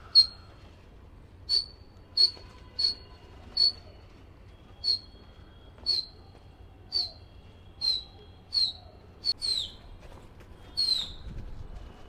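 A small bird's short, high chirps, about a dozen at roughly one a second, the last few sliding downward in pitch.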